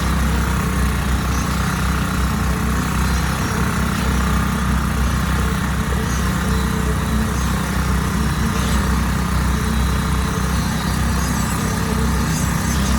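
Engine of concrete-pouring machinery running steadily, an even low drone that does not change.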